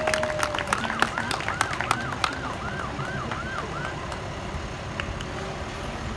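Siren going: a long held tone that stops under a second in, then a fast yelp of about three rising-and-falling sweeps a second that dies away about four seconds in. Scattered claps are heard through the first two seconds.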